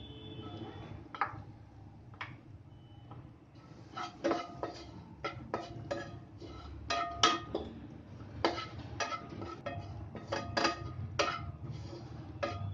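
Wooden spatula stirring desiccated coconut in a nonstick frying pan, scraping and knocking against the pan. A few light taps come first, then from about four seconds in the knocks come quickly, about two a second, some ringing briefly.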